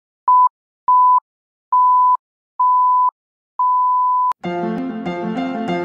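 Film-leader countdown beeps: five beeps at one steady pitch, each a little longer than the last, the last cut off by a sharp click about four seconds in. Piano music starts right after the click.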